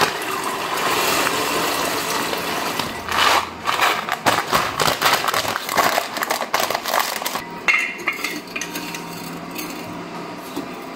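Dry lentils poured from a paper bag into a stainless steel pot: a continuous rattle of small seeds on metal for about three seconds, then more in shorter, uneven runs until about seven seconds in, after which it goes quieter.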